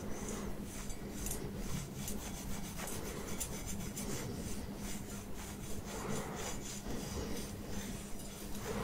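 Wire scalp massager's prongs scratching and rubbing through short-cropped hair close to the microphone: a dry rasping in quick repeated strokes, with a faint steady hum underneath.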